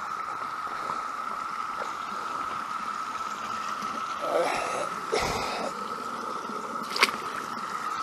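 Steady high-pitched drone of a Brood X periodical cicada chorus over a trickling creek. About four seconds in there is a splash and sloshing as the bass is let back into the water, and a single sharp click near the end.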